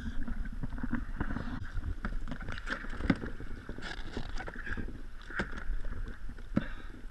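Scuba fins and gear knocking and bumping against a plastic kayak hull as a diver seated on it handles them, the sharpest knock about three seconds in. Under it runs a steady low rumble of wind on the microphone.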